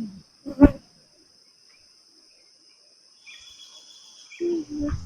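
Steady high-pitched drone of insects in the forest, with a sharp knock about half a second in and a short voice near the end.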